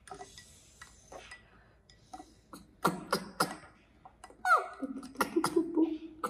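Red plastic spoon stirring chocolate milk in a small drinking glass, knocking against the glass three times in quick succession about three seconds in. Near the end, a short voice sound that drops in pitch and then holds low.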